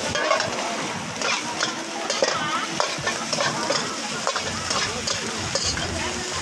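Rice frying and sizzling in a hot wok as it is stirred and tossed with a metal ladle, which scrapes and clinks against the pan.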